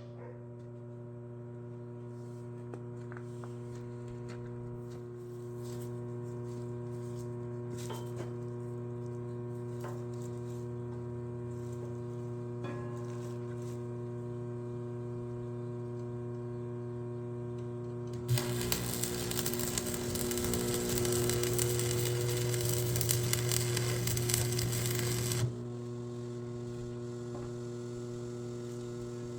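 Steady electrical hum of an arc welder, then a stick-welding arc crackling for about seven seconds a little past the middle, cutting off suddenly as the bead on a cracked skid steer grapple jaw is finished.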